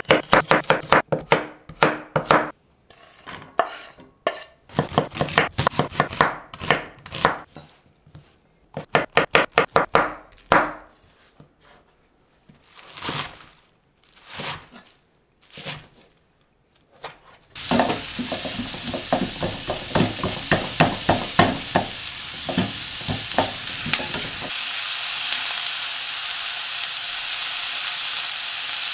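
A kitchen knife chopping julienned carrots on a wooden cutting board in quick runs of strokes, then a few slower single cuts through a bunch of garlic chives. About 18 s in, carrots and onion start sizzling in a frying pan, stirred with a spatula that clicks against the pan for several seconds, then a steady sizzle.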